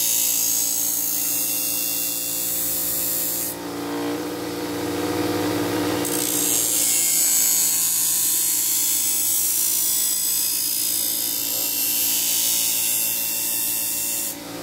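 Bench grinder fitted with MDF wheels running steadily, with the hiss of a machete's steel edge rubbing against the spinning compound-charged wheel as the burr is honed off. The hiss stops for about two seconds, around four seconds in, then resumes.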